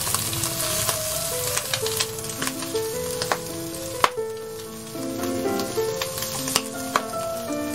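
Whole boiled squid sizzling as they fry in a frying pan, with sharp crackles and clicks as they are turned with wooden chopsticks; one click about four seconds in is the loudest. Background music with short melody notes plays throughout.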